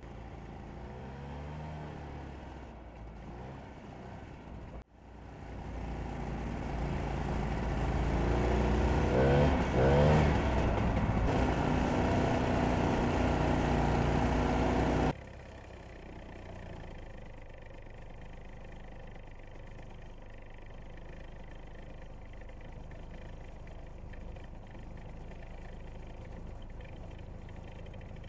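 Ski-Doo Elan snowmobiles' two-stroke engines running along a trail, the pitch rising and falling as the throttle opens and eases. From about five seconds in the engine noise grows louder and peaks around ten seconds. It drops off abruptly about fifteen seconds in to a quieter, steady running sound.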